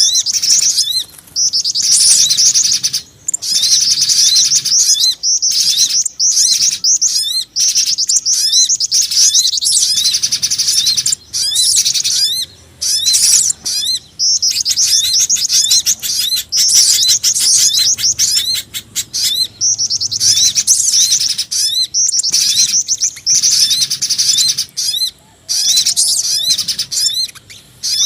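Bird-lure recording of small forest birds calling: rapid high-pitched chirps and fast trills with short pauses, a mix built from spiderhunter and flycatcher-shrike (jingjing batu) calls.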